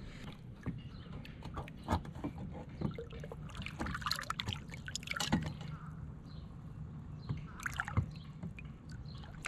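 Small water splashes and trickles at the side of a kayak as a snook is released and swims off. Scattered splashes, the larger ones about four, five and eight seconds in.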